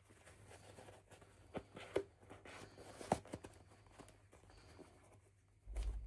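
Close handling of toy packaging by hand: soft rustling with a few sharp plastic-like clicks around the middle, and a low thump near the end.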